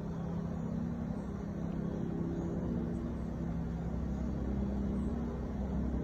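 Low, steady rumble of motor vehicle engines, with a wavering hum that swells slightly and eases off.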